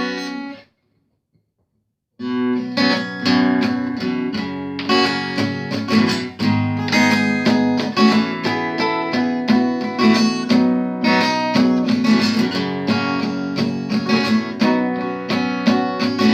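Solo acoustic guitar playing a song's introduction: a short chord right at the start, a pause of over a second, then a steady run of chords from about two seconds in.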